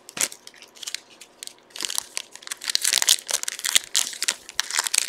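Trading card pack wrappers crinkling and tearing as packs are handled and opened, in irregular rustling bursts that get busier from about two seconds in.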